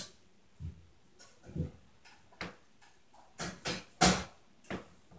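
Irregular thuds and knocks from footsteps stomping on the floor of the apartment upstairs, heard through the ceiling: a couple of dull low thuds, then a quick cluster of sharper knocks, the loudest about four seconds in.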